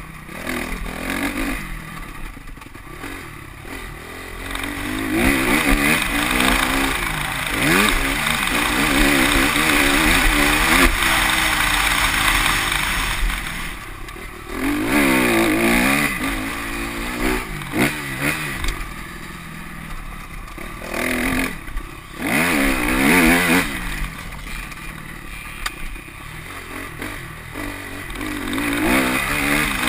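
2010 Honda CRF250R's four-stroke single-cylinder engine under riding load, revving up and backing off again and again, its pitch climbing and falling with each pull.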